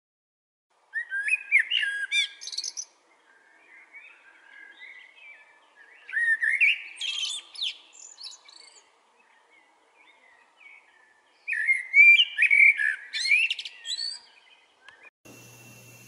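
Common blackbird singing: three fluting phrases about two seconds long, each ending in a higher twitter, a few seconds apart, with softer twittering between them.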